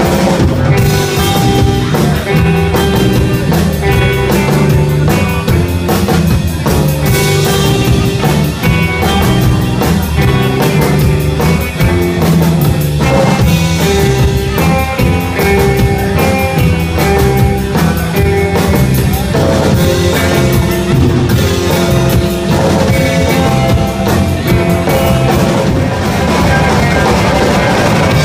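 Live garage/surf-punk rock band playing loudly and without a break: electric guitars, bass guitar and a drum kit.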